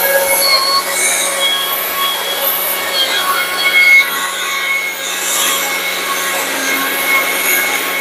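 Battery-powered chainsaw with a carving bar running steadily while its chain cuts into a block of wood, a steady motor whine with high squeals and rasping from the chain biting the wood.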